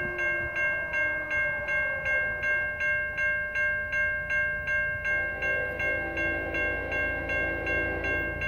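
Railroad crossing warning bell ringing in an even rhythm, about two and a half strokes a second. From about halfway through, a low rumble of an approaching train grows beneath it.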